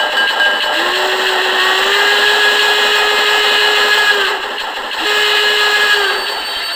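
Steam locomotive whistle: one long blast, sliding up slightly as it starts, then a shorter second blast, over a steady hiss of steam.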